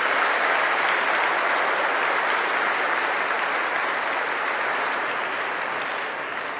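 A large audience applauding, a dense, steady clapping that slowly dies down near the end.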